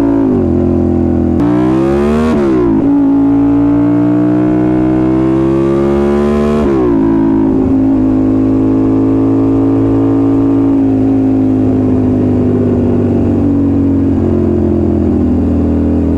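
2008 Suzuki SV650S's V-twin engine pulling hard through the gears. The revs climb steeply about a second in and drop sharply at an upshift, climb again more slowly, and drop at a second upshift around seven seconds in. It then runs at a steady cruise that eases off a little near the end.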